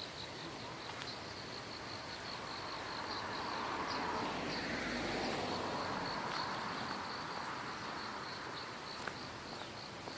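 Insects chirping steadily in a high, rapidly pulsing trill. A broad rushing noise swells to a peak about halfway through and then fades.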